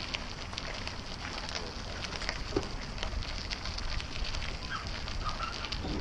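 Bicycle tyres crunching and crackling over gravel, with a low rumble of wind on the microphone.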